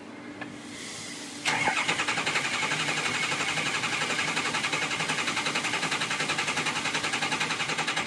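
Ford 6.0 Power Stroke V8 turbo-diesel being cranked by the starter without firing, starting about a second and a half in and turning over with an even pulsing beat. It has a clunk, clunk and popping sound along with a screech, the sign of a crank-no-start with no base oil pressure: injection control pressure stays at zero, so the injectors cannot fire.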